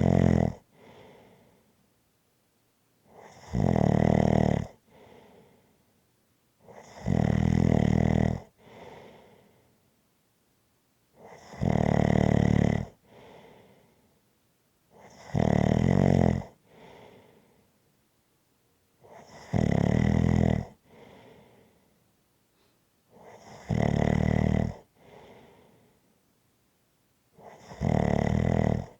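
Steady, rhythmic snoring: a loud snore about every four seconds, eight in all, each followed by a fainter, shorter sound.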